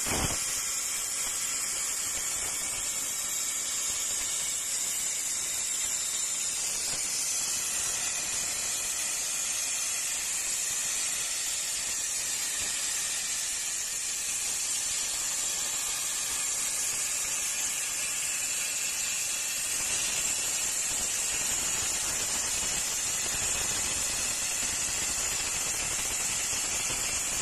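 CNC plasma cutting table's torch cutting metal plate: the plasma arc gives a steady, high-pitched hiss.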